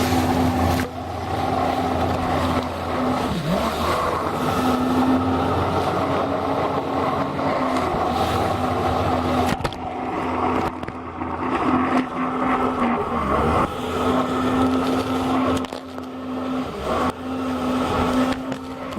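Yamaha VX Sport jet ski engine running steadily under way, with a constant rush of water and wind. Twice, about three and a half seconds in and again about thirteen seconds in, the engine pitch dips briefly as the throttle eases, then comes back up.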